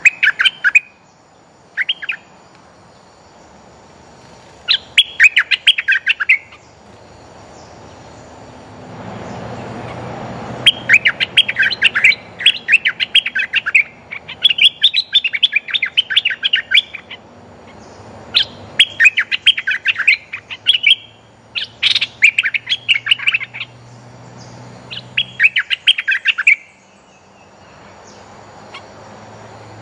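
Bulbul lure calling: bursts of quick bubbly chirping notes, each burst one to two seconds long, repeated many times with short gaps and coming thickest in the middle stretch. It is the kind of call used to draw wild bulbuls to a caged decoy.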